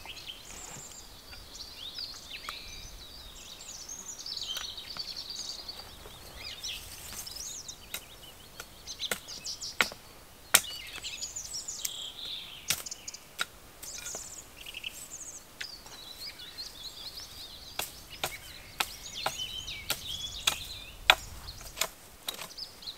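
Sharp, irregular chops of a small hatchet striking a dead branch, trimming it into a pole, beginning about a third of the way in and coming fastest near the end. Songbirds sing throughout.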